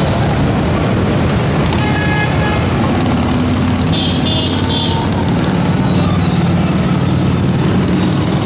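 Steady low engine rumble of touring motorcycles riding past one after another, with a few short high-pitched tones about two, four and six seconds in.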